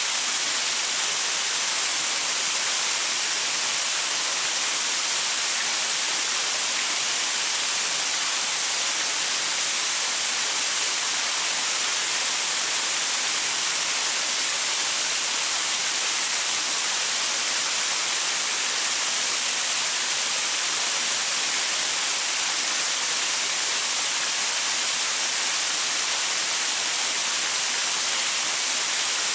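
Waterfall pouring onto rocks: a steady, even hiss of falling and splashing water, bright and with little low rumble, unchanging throughout.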